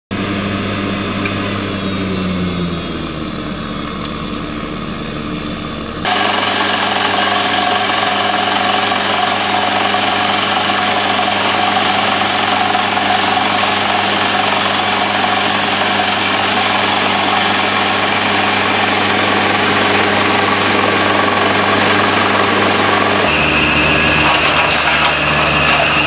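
Atlas Copco ROC L8 surface drill rig's diesel engine running, with the steady, dense noise of the rig drilling into rock. The engine pitch drops a couple of seconds in, the sound jumps suddenly louder about six seconds in, and near the end it changes abruptly again as a steady high whine comes in.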